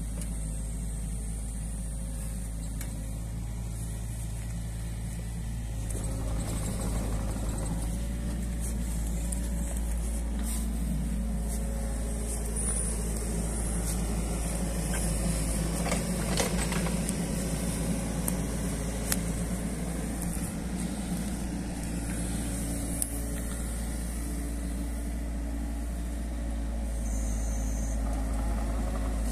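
New Holland Kobelco E50.2 mini excavator's diesel engine running steadily while it digs out the ditch and swings its bucket, louder from about six seconds in as it works under load. A few sharp knocks stand out midway.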